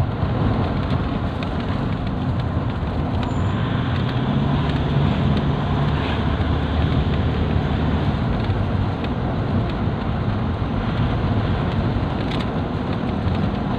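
Car driving along a paved road, heard from inside the cabin: steady engine and tyre noise.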